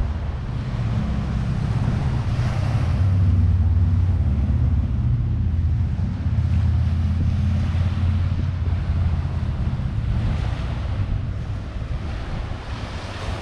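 Wind buffeting the microphone in a steady low rumble, over small sea waves washing onto a pebble beach that swell up a few times.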